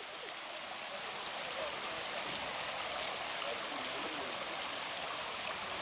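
Water running in a fountain pool: a steady, even rushing hiss.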